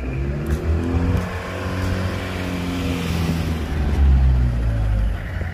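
A motor vehicle's engine passing close by, its pitch falling slowly. It grows louder to a peak about four seconds in, then drops off.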